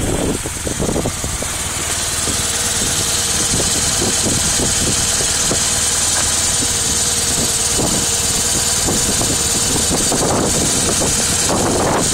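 Motorcycle engine running steadily, with a steady hiss over it.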